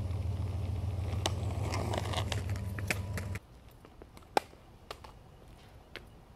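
Small plastic Penny skateboard wheels rolling on rough asphalt: a steady low rumble with gritty crackles. It stops suddenly a little over three seconds in, leaving a quieter stretch with a few sharp clicks.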